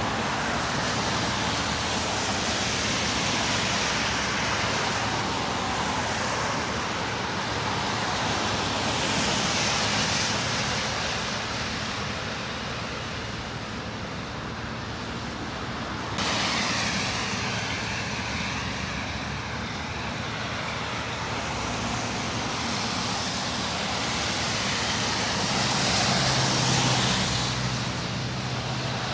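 City street traffic: cars passing, their tyre and engine noise swelling and fading several times over a steady background hum, with an abrupt change in the sound about halfway through.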